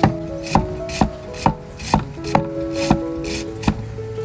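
Steel cleaver shredding red cabbage on a wooden chopping block, with steady knocks about two a second as the blade cuts through and strikes the wood.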